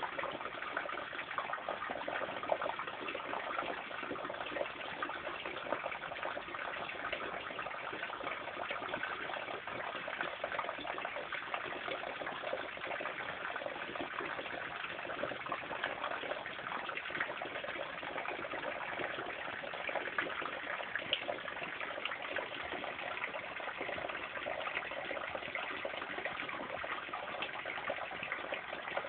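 Steady rain falling on garden leaves and plants: a continuous hiss made of countless small drop ticks.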